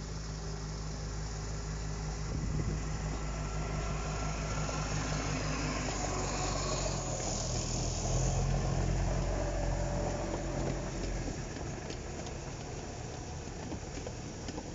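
Small narrow-gauge diesel locomotive, the RHDR's J.B. Snell, running past while hauling a coach and a train of flat wagons, its engine note changing about six seconds in. The wheels rumble and clatter on the track, with a brief high squeal near the middle, and the sound is loudest as the locomotive and coach go by.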